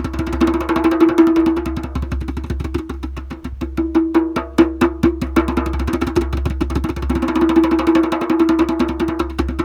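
A large percussion instrument struck in rapid strokes, about ten a second, over a steady ringing tone.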